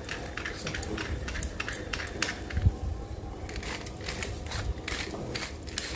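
Stainless steel namkeen (sev) press being screwed shut by hand: a run of metal clicks and scrapes from the threaded lid, with a thump about two and a half seconds in.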